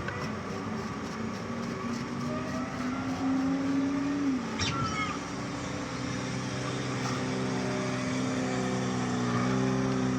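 A motor running steadily with an engine-like hum, its pitch shifting and dropping about four seconds in before settling. A single sharp metallic click comes a little after halfway.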